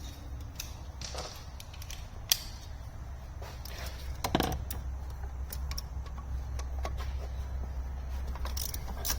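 Socket wrench clicking and knocking as it loosens the bolts on the shift selector shaft housing atop the transmission, with a sharp click about two seconds in; the bolts come loose easily. A steady low hum runs underneath.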